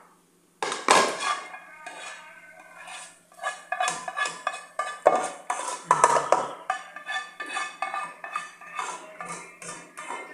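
A spoon scraping and clinking against dishes as thick rice pudding is spooned into glass bowls: a rapid, irregular run of knocks and scrapes, some ringing, starting about half a second in.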